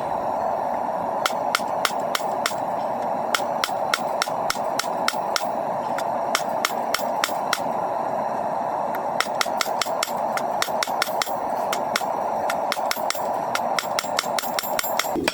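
Hammer blows ringing on hot coil-spring steel at the anvil, in runs of about two to three strikes a second with short pauses: fullering and drawing out the bar for a knife blade and handle. A steady rushing noise runs underneath and stops at the very end.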